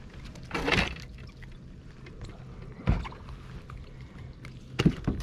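A fish swung up on a line and coming off the hook over a fishing boat: a short noisy rush about half a second in, then a sharp knock on the boat near three seconds and a few more near five, over a low steady hum.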